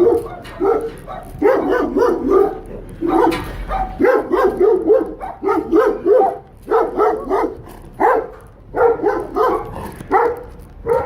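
A dog barking loudly and repeatedly, in quick strings of barks with short pauses between them.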